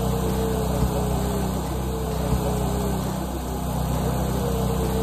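An engine running steadily at idle, an even hum with no change in speed.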